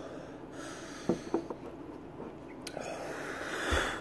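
A man breathing hard through his mouth as a habanero burns his mouth, with a few short mouth sounds just after a second in and a long hissing breath building near the end.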